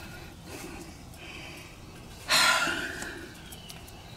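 A man's loud, breathy exhale about two seconds in, a short huff that fades away over most of a second: an exasperated sigh.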